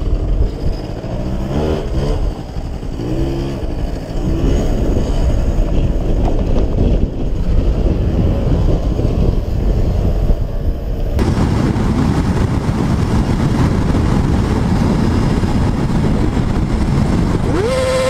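Motorbike riding in traffic, heard from the rider's camera: heavy wind rumble on the microphone and an engine that rises in pitch several times in the first few seconds as it revs up. About eleven seconds in, the sound cuts to another recording of road traffic and wind noise.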